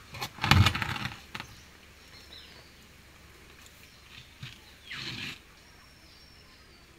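A mason's trowel scooping and scraping wet cement mortar out of a pan, loudest about half a second in. About five seconds in comes a shorter rustle as a terracotta roof tile is pressed onto its mortar bed. A bird's short falling whistle repeats every few seconds.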